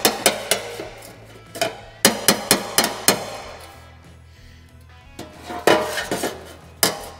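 Planishing hammer striking a sheet metal panel against a dolly held behind it: short runs of quick ringing metal blows, about four or five a second, with pauses between the runs.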